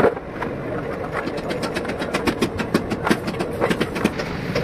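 Rapid metallic clicking, several clicks a second, as a hand wrench tightens the bolts of a ZF truck gearbox's cover plate, with a sharp knock at the very start over a steady workshop background.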